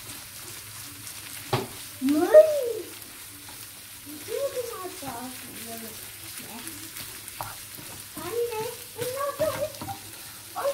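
Minced meat, onion and tomato paste sizzling in a non-stick frying pan while a wooden spoon stirs and scrapes through them, with a knock of the spoon on the pan about a second and a half in. Voice-like sounds rise and fall in pitch at moments over the frying, the loudest about two seconds in.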